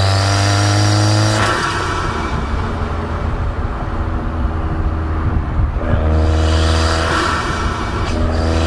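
Subaru WRX's turbocharged engine pulling under acceleration, its pitch rising, with a faint high turbo whistle. It lets off about a second and a half in, leaving mostly road and engine noise, then pulls again from about six seconds in, with a short break near the end, like a gear change.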